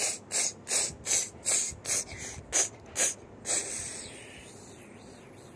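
A child making hissing "pshh" gunfire sounds with the mouth, about three short bursts a second, imitating a toy minigun firing. The bursts stop about three and a half seconds in, trailing off into a fading hiss.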